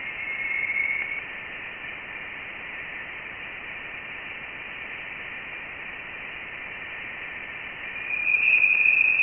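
NASA's sonified Voyager 1 plasma-wave recording from interstellar space: a steady hiss with thin whistling tones. The tones brighten briefly near the start and swell again, slightly higher, near the end. They are plasma oscillations in the interstellar gas, turned into sound.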